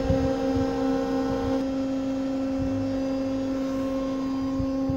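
Steady electrical hum of a ship's deck crane running, heard inside its operator cab, with scattered faint low knocks. One higher tone in the hum drops out about one and a half seconds in.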